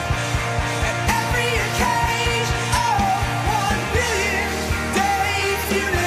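Rock song with a voice singing a melody over a driving beat and a steady bass.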